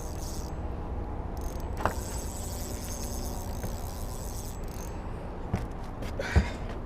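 Outdoor background sound: a steady low rumble under a high-pitched hiss that comes and goes, with a short click about two seconds in and a louder thump near the end.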